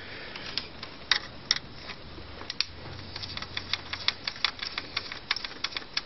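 Light, irregular clicks of a screwdriver working a small screw out of the top cover shield on a DVD player's disc drive mechanism. A few come at first, then several a second from about three seconds in.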